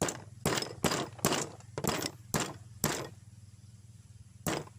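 Hammer striking a nail held on a melamine dish to punch a drainage hole, in light, quick taps: about eight in the first three seconds, then a pause and one more tap near the end.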